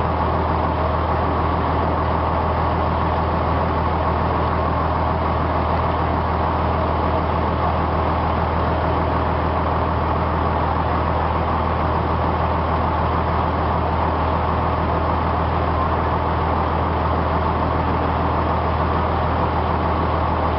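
A boat's engine running steadily, a constant low drone with the wash of water under it, heard from on board.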